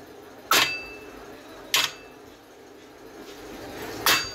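Hammer striking the steel rim of a truck wheel: three sharp metallic clanks with a short ring, about half a second in, near two seconds, and near the end.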